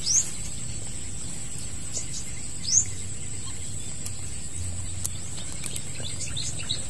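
Small bird giving short, quick upward chirps, one just after the start and one near three seconds in, with a few fainter chirps near the end, over a steady high-pitched hum and low outdoor rumble.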